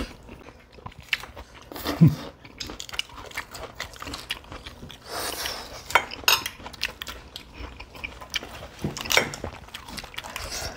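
Sounds of eating at a table: metal cutlery clicking against plates, with chewing and some crunching. The clicks are scattered and irregular, a few of them louder.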